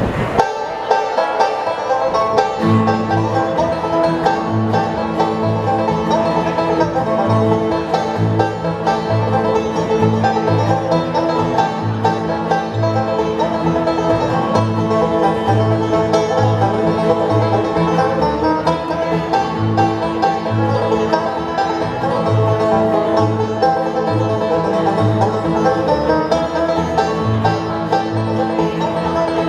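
Live bluegrass band playing an instrumental passage, led by banjo picking over guitar. A bass joins about two and a half seconds in with a steady, evenly repeating bass line.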